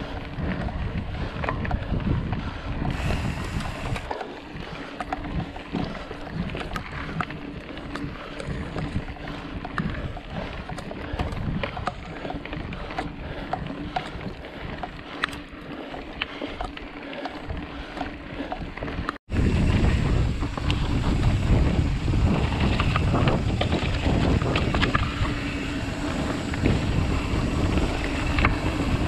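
Mountain bike rolling fast over a dry dirt forest trail: tyre rumble and the rattle and knock of the bike over bumps, with wind buffeting the camera's microphone. A brief drop-out comes about two-thirds through, after which the rumble is louder.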